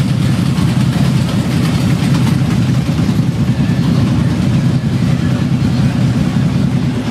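Vehicle engine running steadily, a continuous low rumble with no change in pitch.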